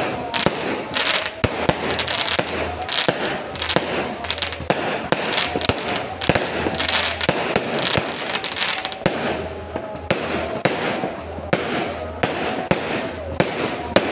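Aerial fireworks going off in rapid succession: sharp bangs about two a second, with crackling from the bursting stars between them.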